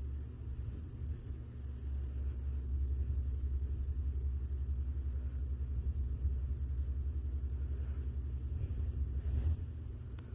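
Bengal kitten purring close to the microphone while her belly is rubbed: a steady, deep rumble with a fast flutter that stops about nine and a half seconds in.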